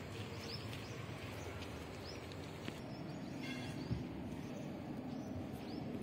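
Outdoor ambience: a steady background hum with small birds chirping now and then, and a short call of several stacked tones about three and a half seconds in.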